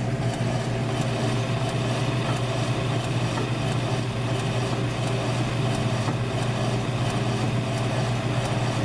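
South Bend metal lathe running steadily with a constant low hum and faint, evenly spaced ticking, while the tool is touched off on a scooter wheel.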